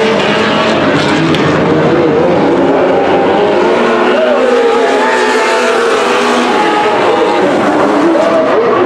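A field of sprint car engines running flat out, several at once, their pitches weaving up and down against each other as the cars race past.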